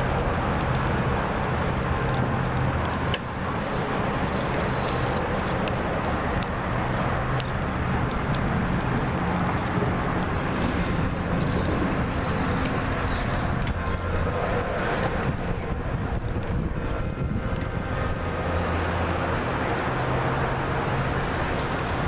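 Road traffic: car engines passing, their hum coming and going several times, over a steady hiss of wind on the microphone.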